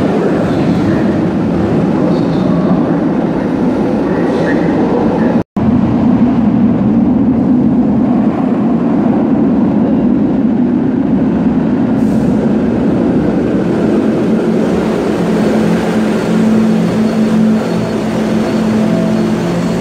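SEPTA Kawasaki light-rail trolley cars running through an underground station: a steady, loud rumble of wheels on rail with a low motor hum. The sound drops out for an instant about five seconds in. Near the end the hum strengthens as a trolley draws alongside the platform.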